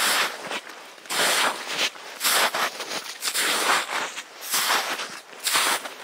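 Footsteps in boots crunching through old spring snow, about one step a second.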